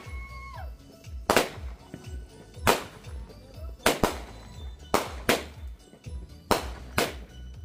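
Aerial fireworks shells bursting overhead: seven sharp bangs, roughly one every second and a quarter, with two close together about five seconds in, each followed by a short ringing echo.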